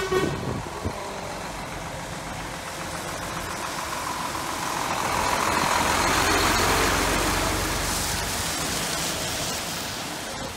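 A diesel semi-truck driving slowly past at close range, engine and tyres on the wet road swelling to loudest about six seconds in and then fading as the next trucks in the convoy follow.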